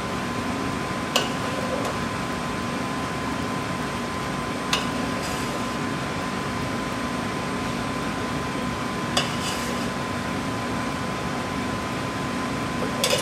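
Steady hum of kitchen ventilation with a faint constant tone, broken by four light clinks a few seconds apart: a ladle against the stainless steel pot and the soup bowl as soup is ladled out.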